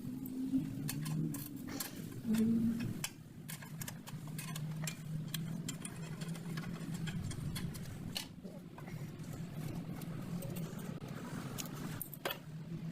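Metal tools clicking and clinking against car parts at irregular intervals, over a steady low hum.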